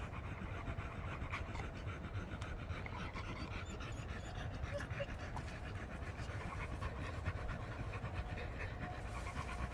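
American Pit Bull Terrier panting steadily, a sign it is overheated and cooling down after a long stretch of hard digging.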